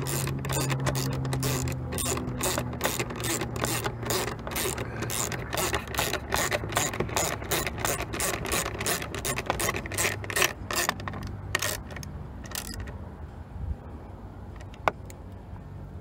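Ratchet wrench with a 9 mm socket on an extension driving in a screw, its pawl clicking rapidly on each back-swing. The clicking stops about three-quarters of the way through, and a single sharp click follows near the end.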